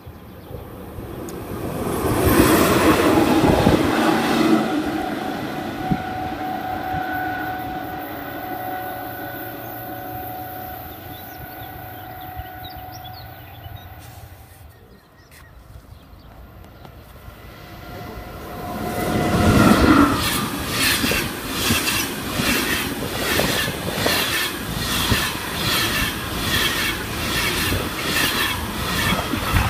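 Trains passing on electrified main line, with no voices. Rail noise with a steady whine swells early and fades. Then a passenger train comes by close, its wheels giving a quick, regular clickety-clack over the rail joints.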